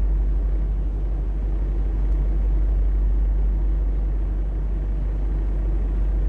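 Steady low rumble of a semi truck's diesel engine idling, heard from inside the cab.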